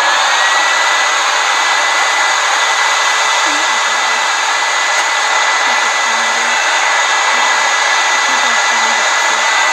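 A small electric blower motor running steadily: a loud, even rush of air with a high whine that rises slightly in pitch in the first moment and then holds steady.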